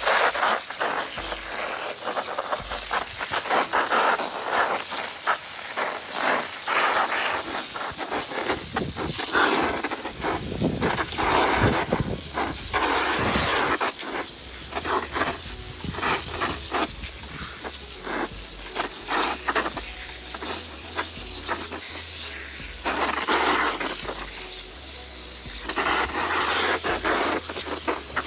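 Food sizzling and crackling as it fries in a hot pan.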